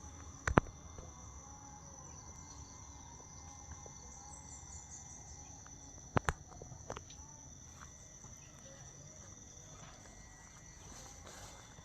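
Insects chirring steadily at a high pitch, with sharp knocks about half a second in and again around six seconds in.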